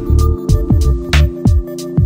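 Background music with a beat: deep bass hits and sharp clap-like strikes over held tones.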